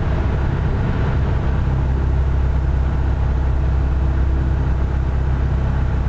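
Light aircraft's piston engine and propeller running steadily, a loud, even drone heard inside the cockpit.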